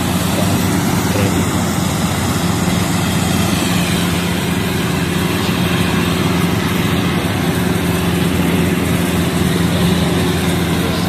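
Gatra rice combine harvester running steadily as it cuts and threshes standing rice. Its engine and machinery make an even, unbroken hum.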